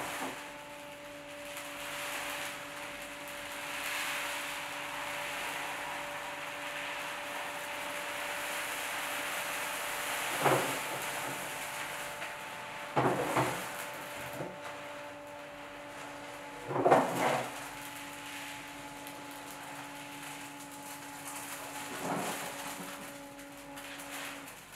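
Furbulous Box automatic litter box running its Smart Clean cycle, its drum motor humming steadily under a rushing hiss as the drum turns. Several clunks come about 10, 13 and 17 seconds in, the one near 17 s the loudest, and another near 22 s; the motor hum stops just before the end.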